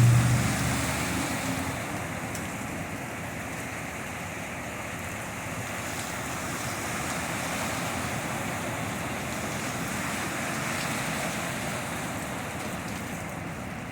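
A steady rushing wash of heavy rain and floodwater on a flooded street. In the first couple of seconds a passing car's engine hum fades away.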